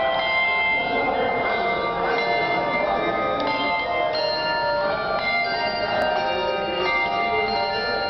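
A handbell choir playing a piece: many bell notes struck in quick succession, each ringing on and overlapping the next.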